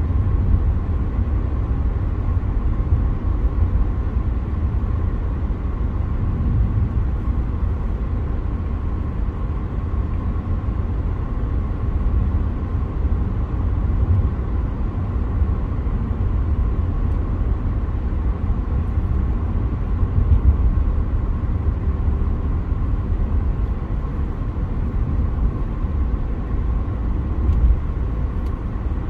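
Jet airliner engines running at a distance: a steady low rumble with a faint, even whine over it, holding level throughout without rising or falling.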